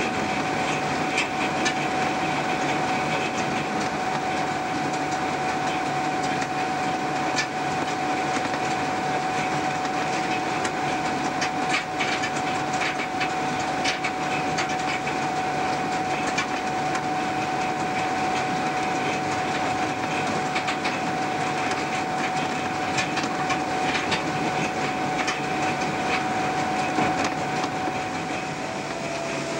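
Cab-ride sound of a train led by three EMD GP38-2 diesel locomotives (16-cylinder two-stroke engines) running under power through snow drifts: a steady running noise with a steady whine over it and scattered sharp clicks.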